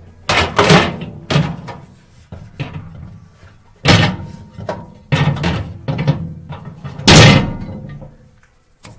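A series of loud thuds and slams, about seven of them spread unevenly, the loudest and longest about seven seconds in, with music underneath.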